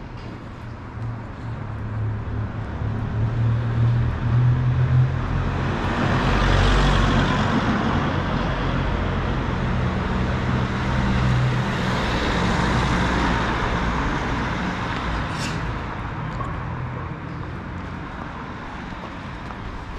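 A vehicle driving past close by on a narrow street: a low engine hum and tyre noise swell up over several seconds and then slowly fade away.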